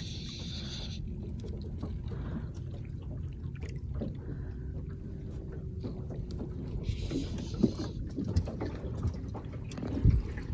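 Water lapping against a small boat's hull under a steady low rumble, with scattered knocks and a brief hiss about seven seconds in.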